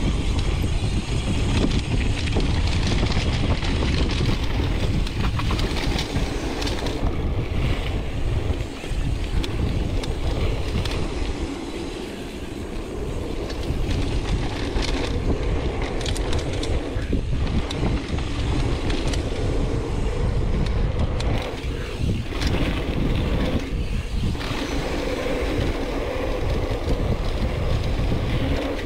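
Mountain bike descending a dirt trail at speed: wind buffets the microphone over the tyres rolling on packed dirt, with scattered knocks and rattles from the bike over bumps.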